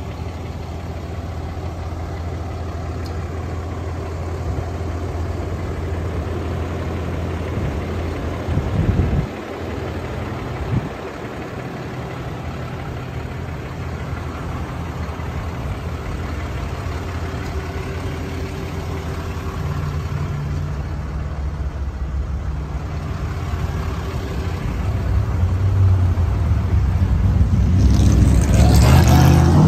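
Ram 3500's Cummins turbo-diesel idling steadily with a low, even hum. A louder rushing noise builds over it near the end.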